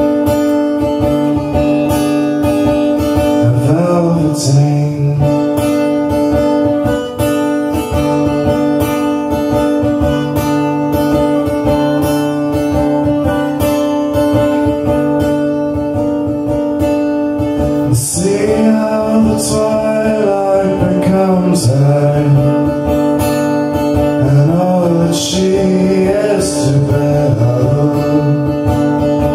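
A live song: an acoustic guitar strummed in a steady rhythm, with a man singing a short line about four seconds in and again through the last ten seconds or so.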